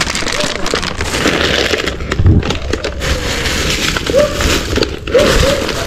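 Plastic bags rustling and crinkling as they are handled right at the microphone.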